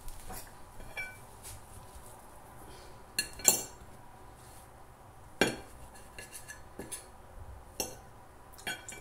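Table knife and fork clinking and scraping on a plate while cutting a pan-fried cep (penny bun) mushroom: a scatter of sharp clinks, the loudest about three and a half seconds in.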